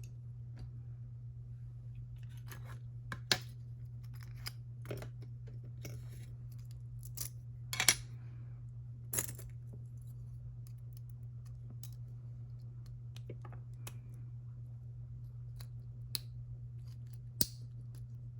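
Scattered small metallic clicks and scrapes of tools on an EVVA EPS slider lock cylinder as its retaining clip is worked off, over a steady low hum.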